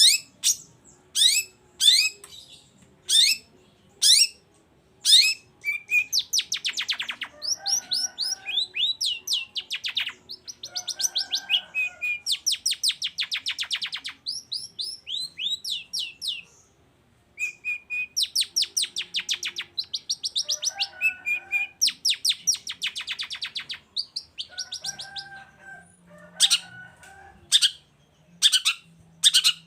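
Long-tailed shrike (cendet) singing loudly and continuously: rapid series of sharp, high downward-slurred notes and fast chattering trills, mixed with harsher, lower notes, with one short pause about two thirds of the way through.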